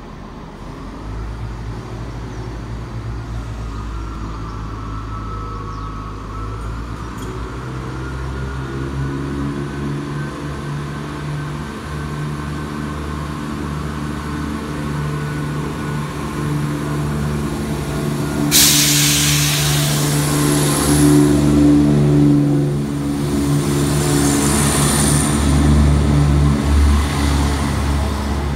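Diesel multiple unit pulling away, its underfloor diesel engines running and stepping up in revs near the start, growing louder as the train draws close and passes. About two-thirds of the way in a sudden loud hiss of air breaks out for a couple of seconds, with a weaker hiss near the end.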